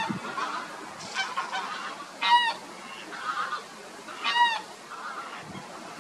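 Greylag and white domestic geese honking: three loud honks about two seconds apart, with softer calls from the flock between them.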